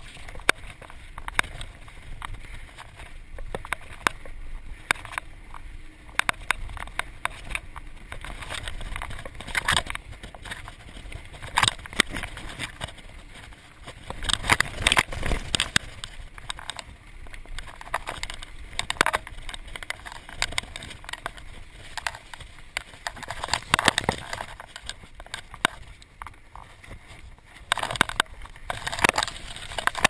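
Mountain bike clattering and rattling as it is ridden fast over a bumpy dirt singletrack, tyres rumbling on the dirt. Frequent sharp knocks from roots and bumps come in clusters, loudest about halfway through and again near the end.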